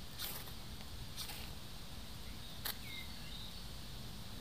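A few short scraping strikes about a second apart, then a sharper click, while tinder is being lit in a split-log rocket stove. Under them is a steady low outdoor rumble, with a faint chirp near the end.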